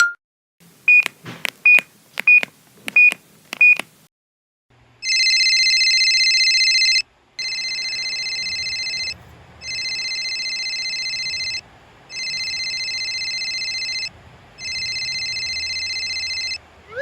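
A few short electronic beeps with clicks, then an electronic ringing tone in five bursts of about two seconds each, separated by short gaps, like a telephone ringing. The first burst is the loudest.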